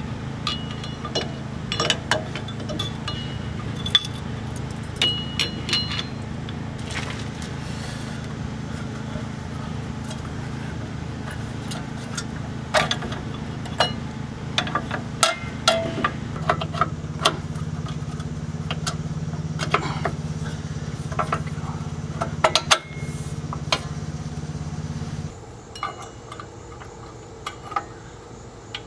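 Metal parking-brake shoes and spring hardware clinking and tapping in irregular, sharp clicks as they are handled and fitted against a rear brake backing plate. A steady low hum runs underneath and cuts off suddenly near the end.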